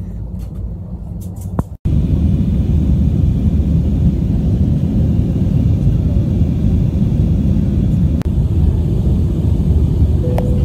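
Steady low roar of a jet airliner cabin in flight, picked up by a phone microphone; it jumps louder at a cut about two seconds in.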